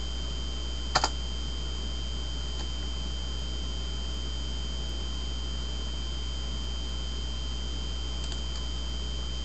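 Steady low electrical hum with faint high whining tones, broken about a second in by one sharp double click.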